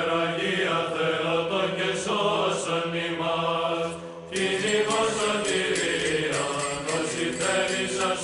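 Byzantine chant: voices singing a slow melody over a steady held drone note, with a brief pause for breath about four seconds in.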